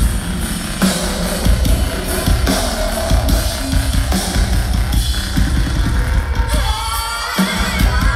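Live band music heard through a phone's microphone: a steady drum beat and heavy bass, with a sung vocal line coming in near the end as the bass drops out for a moment.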